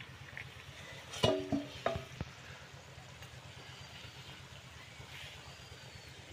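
Steel bowl used as a pan lid clanks and rings against the metal karai a few times as it is lifted off, about a second in. After that, fish masala sizzles steadily and quietly in the pan.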